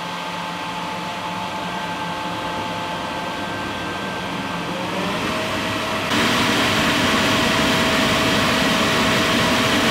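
Homemade leaf-blower-fed butane jet engine running: the electric leaf blower's motor whines steadily with a rushing airflow noise, its pitch rising about five seconds in. About six seconds in the sound jumps suddenly to a louder, harsher rushing noise as the burner's combustion takes hold.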